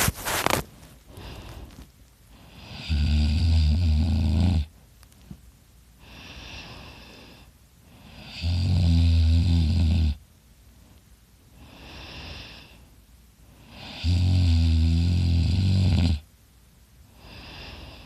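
A man snoring loudly in his sleep: three long, low snores about every five and a half seconds, each lasting about two seconds, with softer breaths in between. A brief loud noise comes right at the start.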